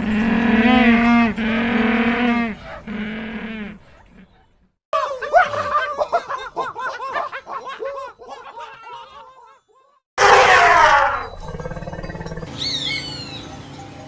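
A string of animal calls. First penguins give a series of braying calls for about four seconds. After a short gap comes quick, high chattering from a tree-dwelling primate. About ten seconds in there is a loud rough burst, followed by a few high, falling screeches from a hawk.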